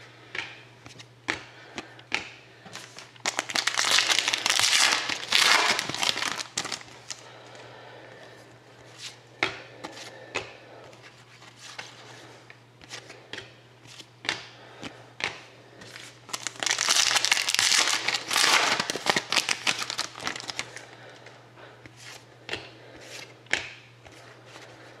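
Trading card pack wrappers crinkling and tearing in two long bouts, one a few seconds in and another past the middle, with many light clicks and slides of cardboard cards being handled and flipped in between. A steady low hum runs underneath.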